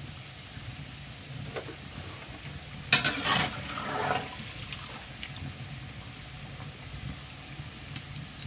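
Khajoor dough pieces going into hot oil in a wok, setting off a sudden loud burst of sizzling about three seconds in that fades after about a second. Quieter frying and a few faint clicks are heard around it.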